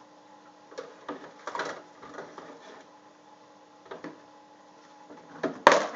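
Things rattling and knocking inside a wooden kitchen cabinet as a toddler rummages in it: several light clatters, then one loud, sharp knock near the end, over a faint steady hum.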